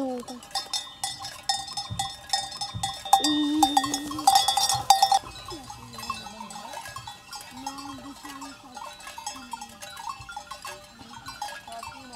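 Livestock bells ringing and clanking as grazing animals move, with a loud bleating call about three to five seconds in and several shorter, fainter calls after it.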